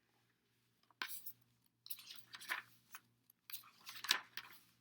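Paper rustling and handling sounds of a picture book being opened and its pages turned, in three or four short crinkly rustles.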